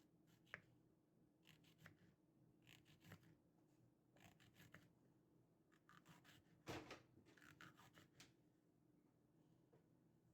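Faint clicks and short scrapes of small utensils being handled in a miniature kitchen, coming in irregular clusters. The loudest knock comes about two-thirds of the way through.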